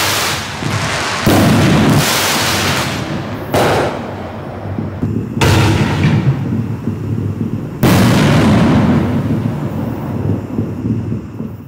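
Consumer 6-inch canister aerial shells (60-gram reloadable mortar shells) firing in sequence. There are four sharp, deep bangs from shells launching from the tube and bursting, roughly two seconds apart, each trailing off over a second or two.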